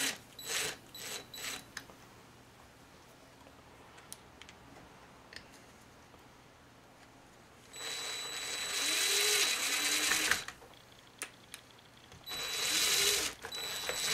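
Cordless drill spinning small screws into a chainsaw's muffler cover. A few short spins near the start, then two longer runs of a few seconds each with a steady high motor whine, the second near the end.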